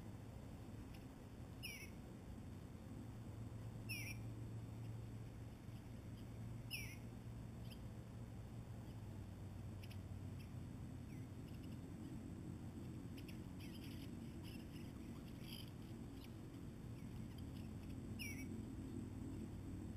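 A bird gives a short downward-slurred call four times, spaced irregularly, with a few fainter chips in the middle, over a steady low background rumble.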